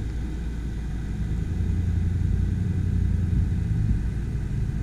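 Low, steady rumble of a vehicle engine and road noise while driving, cutting in and out abruptly.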